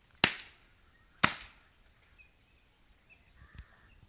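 Two sharp, loud knocks about a second apart, each dying away quickly, with faint high chirping behind them.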